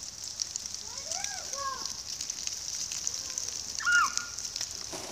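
Children's short high-pitched cries and calls while playing in snow, the loudest a brief squeal near the end, over a steady crackling hiss.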